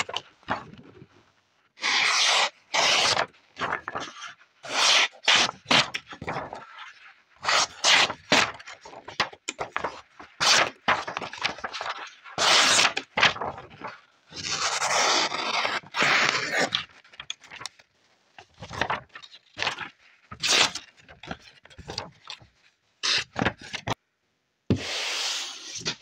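A small D2-steel folding-knife blade slicing through a sheet of printed paper in a string of short, irregular scraping cuts, the paper rustling as it is handled between strokes. The blade goes through the paper with ease, a sign of a keen edge.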